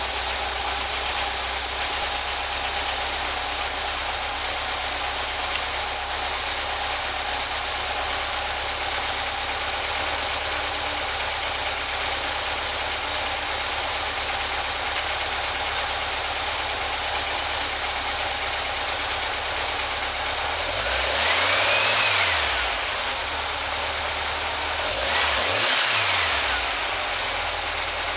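Freshly built 2110cc air-cooled VW flat-four with dual carburettors idling steadily on an engine test stand. About twenty seconds in it is revved up and let back down, then revved again a few seconds later.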